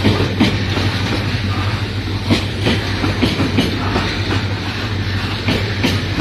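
Freight train of covered boxcars passing slowly close by: a steady low rumble with irregular clacks of the wagon wheels over the rail joints.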